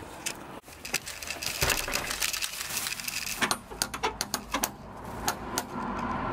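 Brass door knocker on a wooden front door being handled and rapped: a quick run of sharp metallic clicks and taps about halfway through, with two more a moment later.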